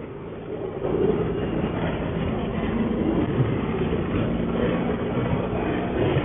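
Honda ST1100 Pan European's V4 engine running steadily as the motorbike rides along, mixed with road and wind rumble; it gets louder about a second in.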